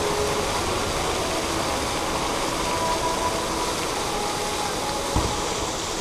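Distant fireworks display: a steady rushing background noise, with one low thump about five seconds in from a far-off firework burst.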